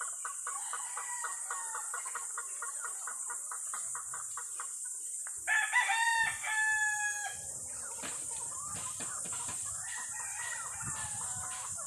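A gamefowl rooster crows loudly once, about five and a half seconds in, for nearly two seconds. Other roosters crow more faintly before and after, over a steady high hiss.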